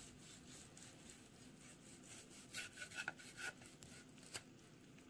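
A knife slicing through cooked turkey breast with faint sawing strokes. Several sharp clicks and scrapes of the blade on the ceramic platter come between about two and a half and three and a half seconds in, and once more near the end.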